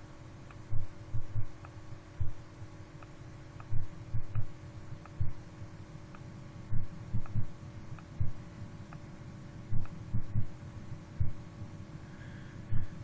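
Dull, low bass thumps at irregular intervals, often in pairs or small clusters, picked up by a CCTV camera's microphone over a steady electrical hum. Their source is unexplained; the investigator wonders whether they are bass from a passing car's stereo.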